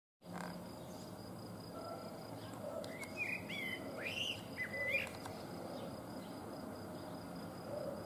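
Male common blackbird singing one short warbled phrase of fluty notes that glide up and down, about three seconds in and lasting around two seconds. A thin, steady high tone runs underneath throughout.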